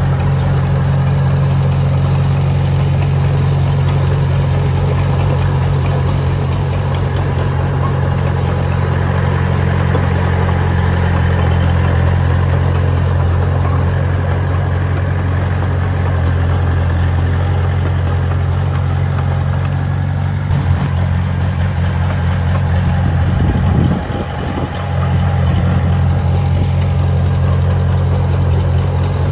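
Small Komatsu bulldozer's diesel engine running steadily under work, a deep continuous note that wavers and briefly dips around twenty-four seconds in before settling back.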